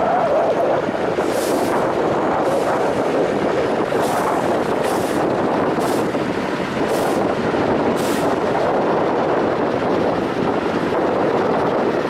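Engine of a six-wheeled truck-trial vehicle running steadily under load as it climbs a steep dirt slope.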